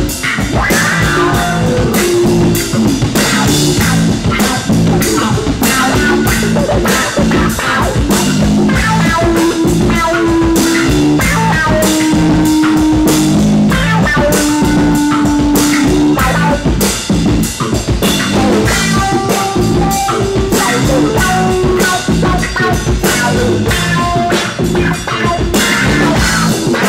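Rock band playing: electric guitar over a drum kit, with long held melody notes partway through.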